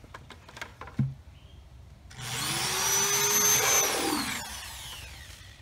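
Handheld power drill boring a hole through the side of a plastic bucket: the motor starts about two seconds in, runs steadily for about two seconds, then winds down with a falling whine. A short click comes just before, about a second in.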